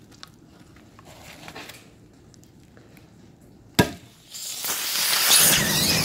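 A nail-punctured LiPo battery pack's last cell going into thermal runaway: faint crackling, a single sharp bang about four seconds in, then a loud rushing hiss of venting gas as the cell bursts into flame.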